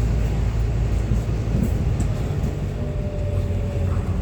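A bus heard from inside the passenger cabin while it drives: a steady low engine and road rumble, with a faint thin whine that comes in late and drifts slightly lower.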